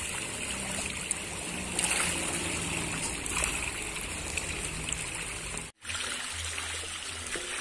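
Dense shoal of pangasius catfish thrashing at the surface of a pond, a steady churning and splashing of water. The sound cuts out for a moment a little past the middle.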